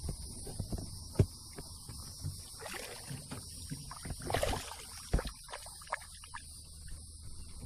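Steady high-pitched drone of insects, with scattered knocks and rustles from moving about in a small fishing boat; the loudest knock comes about a second in.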